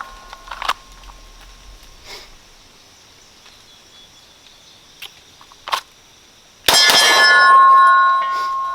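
Glock 19 9mm pistol fired once from the holster about two-thirds of the way in, the shot followed by a long ringing from the struck steel target that fades over about two seconds. A few faint handling clicks come before it.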